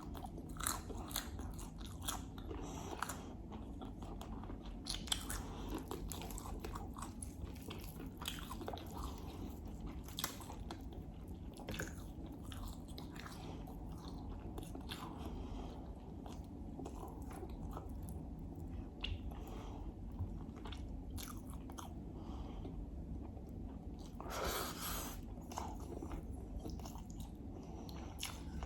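A person chewing and biting food close to the microphone, eating a meal of Persian herb stew, rice and lamb: frequent short wet mouth clicks, with one longer noisy sound about three-quarters of the way through.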